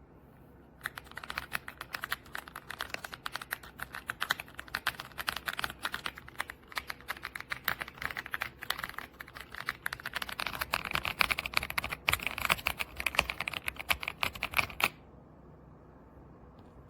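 Fast typing on an EPOMAKER x Aula F75 gasket-mount mechanical keyboard: a dense, continuous run of key clacks that starts about a second in and stops abruptly near the end.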